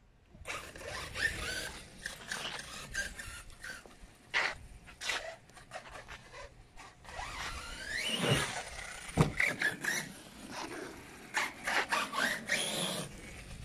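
ARRMA Outcast 6S RC monster truck's brushless electric motor and drivetrain whining up and down in pitch as it accelerates and slows across grass, with a sharp knock about nine seconds in.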